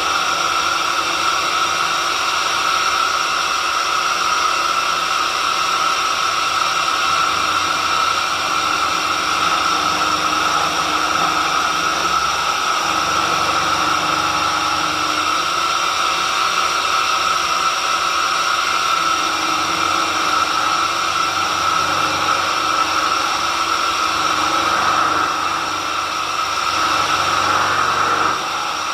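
Homemade horizontal drilling machine running steadily, its motor giving a constant high whine with a hiss, easing slightly for a moment near the end.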